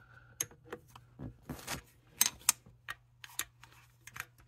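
A 10 mm angle-head wrench clicking and tapping against a nut and the surrounding engine parts as it is worked into a tight spot: irregular sharp metallic clicks with a brief scrape about a second and a half in, the loudest two clicks a little over two seconds in.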